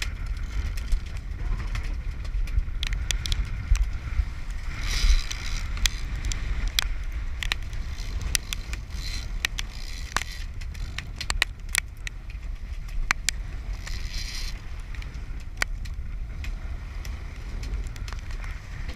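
A fishing boat at sea: a steady low rumble of engine and wind, water washing along the hull with two louder splashes about five and fourteen seconds in, and many sharp clicks and knocks.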